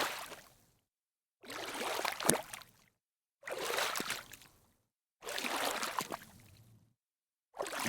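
Water splashing and sloshing in about five short bursts of a second or so each, with dead silence between them.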